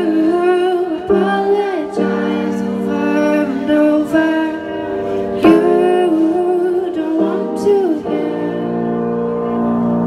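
A woman singing a slow pop song live with a band of electric guitar and drums, in long held phrases whose pitch wavers and slides.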